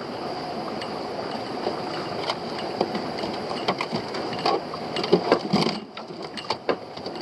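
A small boat's motor running steadily, with irregular knocks and clatter of crab pots and catch being handled on deck. The motor noise drops away about six seconds in.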